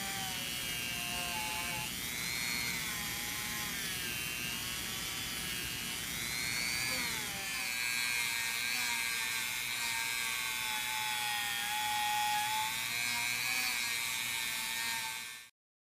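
Handheld rotary tool spinning a small polishing wheel against a screwdriver's steel shank, a steady high whine whose pitch dips and recovers as the wheel is pressed onto the metal. It cuts off suddenly near the end.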